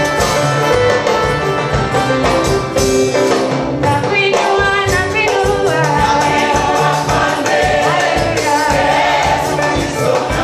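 Gospel worship singing by a group of singers on microphones, over instrumental accompaniment with a steady beat.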